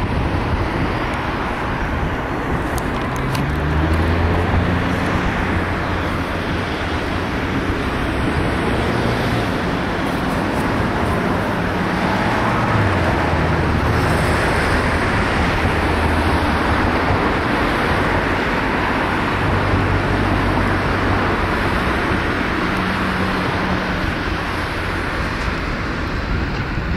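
Steady traffic-like din with a low rumble of motor engines whose pitch rises and falls a few times.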